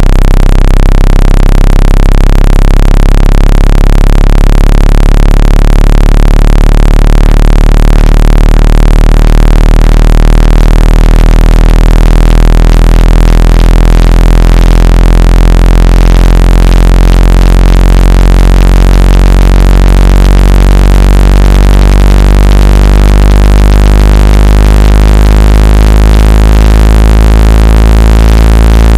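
Speaker-cleaner tone: a loud, steady, low-pitched electronic hum with a buzzy stack of overtones, meant to vibrate water and dust out of a phone speaker.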